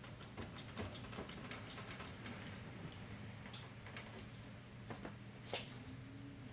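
Hydraulic trolley jack being worked under the rear axle, lifting it to cycle the four-link suspension: a fast run of light clicks, then a few scattered clicks and one louder click about five and a half seconds in.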